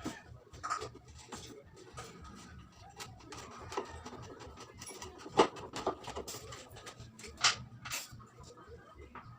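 Scattered clicks and knocks of objects being handled, the loudest about five and a half seconds in, over a faint low hum.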